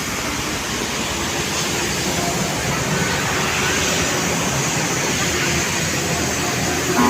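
Steady rumble of large diesel buses running and moving off, with a continuous noisy roar. A steady multi-tone sound starts just at the very end.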